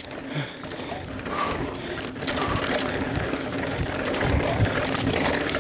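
Mountain bike ridden fast down a rough dirt trail: tyres rolling and the bike rattling over bumps, with irregular low thuds, louder in the second half.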